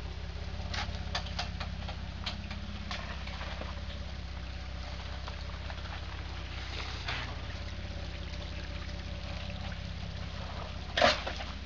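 Jeep Wrangler's 4.0-litre straight-six engine running low and steady as it crawls over a muddy, rutted off-road track, with scattered clicks early on and one loud sharp knock near the end.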